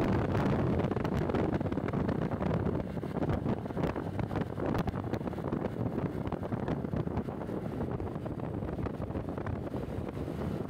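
Wind buffeting the microphone while riding, a steady fluttering rush with road and vehicle noise beneath it.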